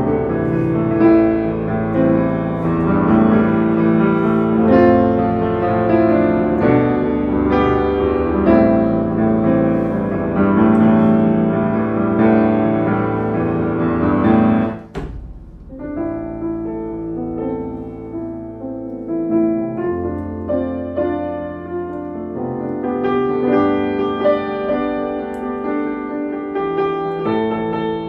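Background instrumental music made of held, pitched notes. About halfway through it breaks off with a click, and a softer passage starts.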